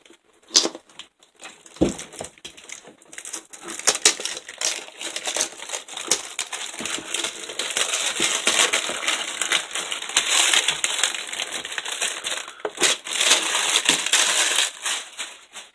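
Packaging on a new tool kit crinkling and crackling as it is unwrapped by hand, with frequent sharp clicks and knocks.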